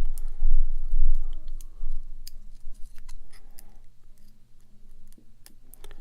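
Handling noise from a padlock and lock-picking tools: scattered small clicks and knocks, with heavy low bumps against the microphone in the first two seconds, over a steady low hum.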